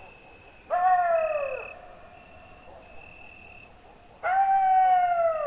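A canine howling twice. A short howl about a second in drops in pitch as it ends, and a longer howl starts near the end, holding its pitch and then slowly sliding down.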